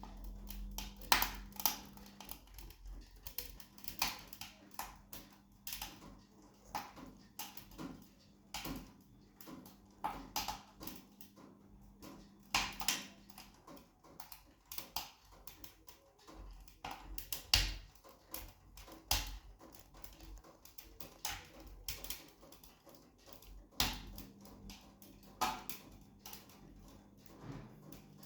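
Wood fire crackling in a fireplace: irregular sharp pops and snaps at uneven intervals, some much louder than others. A faint low hum sits underneath for much of the time.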